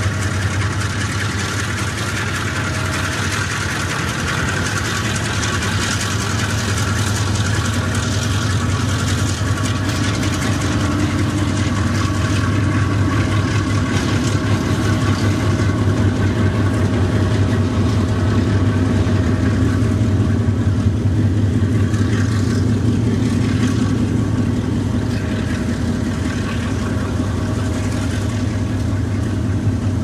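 Chinese diesel locomotive running as it hauls a freight train past, a steady deep engine drone with a low hum and a few steady tones over it, growing louder through the middle.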